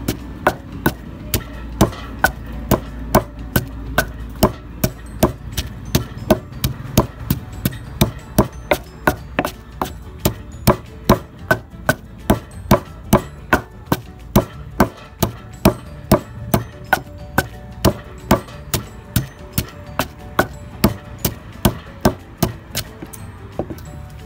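Wooden pestle pounding a wet lemongrass herb paste in a mortar: steady, evenly spaced strikes, about two a second, stopping at the end.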